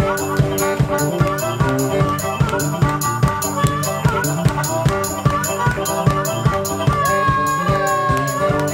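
Live band music: a harmonica solo over strummed acoustic guitar and a steady drum beat. A long harmonica note is held and bent near the end.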